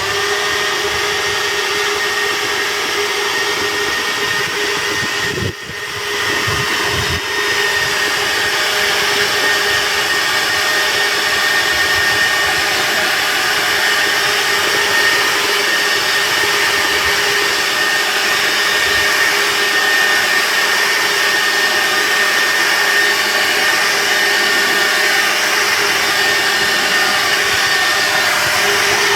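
Leaf blower running steadily at full power, blowing fine debris and leaves off harvested berries, with a brief dip in level about five seconds in.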